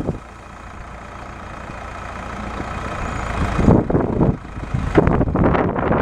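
1976 Case 680CK backhoe's four-cylinder diesel engine running while the backhoe boom and bucket are worked, its sound building steadily over the first few seconds, then turning uneven and gusty about four seconds in.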